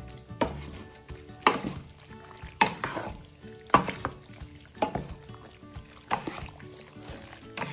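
Wooden spatula stirring and tossing sauced spaghetti in a stainless steel pot, a wet scraping knock against the pot about once a second. Background music plays underneath.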